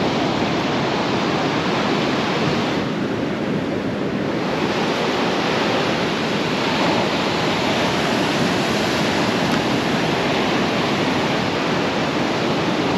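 Ocean surf breaking and washing up a sand beach: a steady rush of waves and foam that eases briefly about three seconds in.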